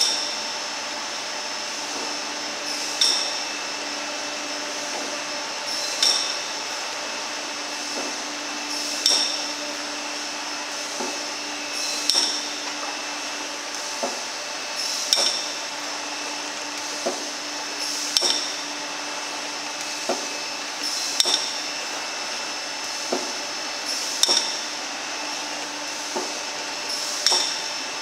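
Marchesini MA 50 horizontal cartoner running: a steady mechanical hum with a sharp metallic clack about every three seconds, each one led by a lighter click about a second earlier.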